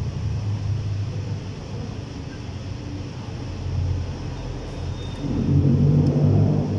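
Low, steady engine-like rumble that swells louder for about a second and a half near the end.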